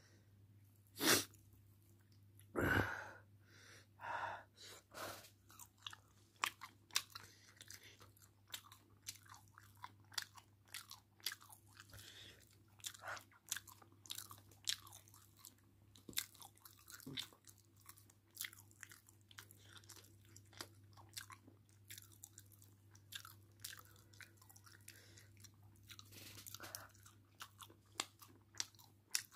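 A person chewing a mouthful of chicken curry and chapati: wet mouth clicks and smacks coming irregularly, with a couple of louder ones in the first three seconds.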